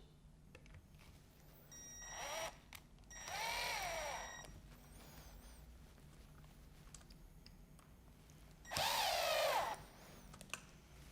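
Cordless drill-driver running in three short bursts, its motor whine rising and falling in pitch as it drives screws into an aluminium corner joint of a blind frame.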